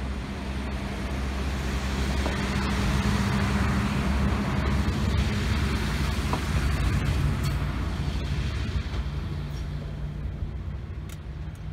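Diesel multiple unit, a DB Class 642 Desiro, running out of the station with its diesel engines working and the wheels rolling on the rails. The sound swells over the first few seconds, is loudest around the middle, and fades toward the end as the train draws away.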